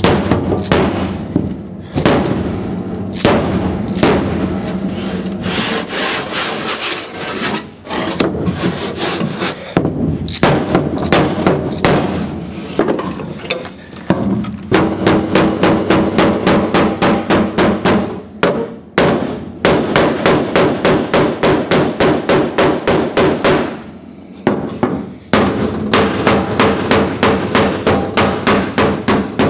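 Hammer blows on a Chrysler CH's sheet-steel floor pan, struck through blocks of wood to knock down kinks and high spots. The blows are irregular at first. From about halfway they turn into a fast, even run of about four to five a second, with two short pauses.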